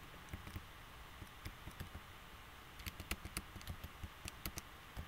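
Faint single clicks of computer keyboard keys, pressed one at a time to step through video frame by frame. The clicks come irregularly, most of them in the second half.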